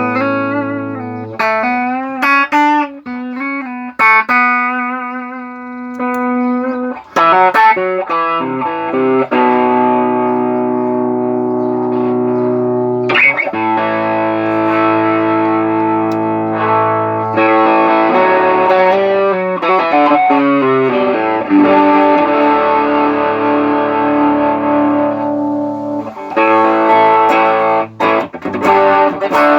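Electric guitar played through an Ibanez TS808 Tube Screamer overdrive pedal, its switching circuit freshly repaired. The first several seconds are single notes with vibrato, then overdriven chords are struck and left to ring.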